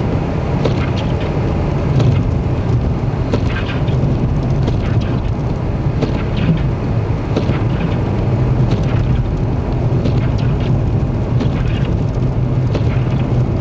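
Steady low rumble of a vehicle driving, with scattered faint ticks and hiss over it.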